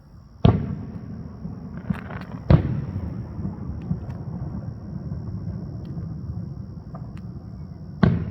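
Aerial firework shells bursting: three loud booms, about half a second in, about two and a half seconds in, and near the end, each trailing off in a long low rumble. A few faint crackles come in between.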